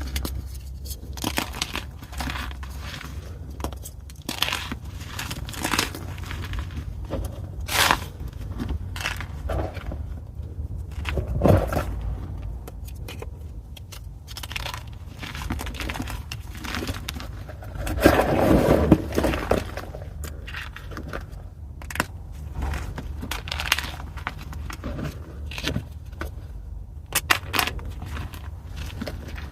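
Pieces of soft gym chalk (magnesium carbonate) being crushed by hand, giving irregular dry crunches and crackles, with a longer, louder crushing stretch around two-thirds of the way through.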